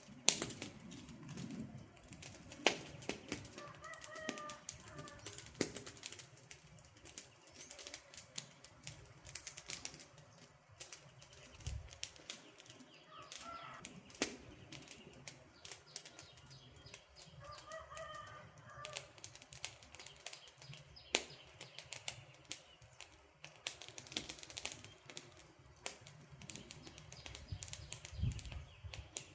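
Wood campfire crackling and popping: a steady stream of irregular sharp snaps, with a few faint bird calls in the background.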